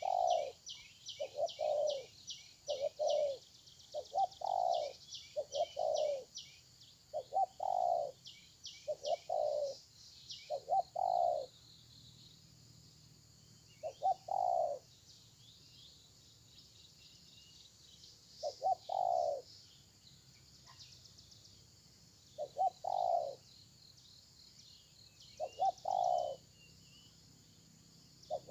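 Spotted doves cooing in short repeated coo phrases, about one a second for the first eleven seconds, then only every three to five seconds. A rapid, high chirping of small birds runs behind them for the first ten seconds or so.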